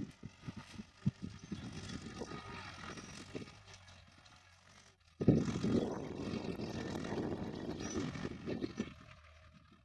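Tractor engine running while pulling a plough through the field, with a steady mechanical sound that jumps suddenly louder about five seconds in.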